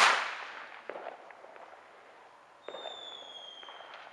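A single loud explosive bang with a long echoing tail, then a few small pops. About two and a half seconds later comes a high whistle-like tone that sinks slightly in pitch for just over a second.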